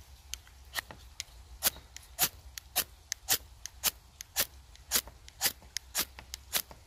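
The awl of a Ruike LD42B multitool used as a fire-steel striker: short, sharp scrapes, about two a second, a dozen in all.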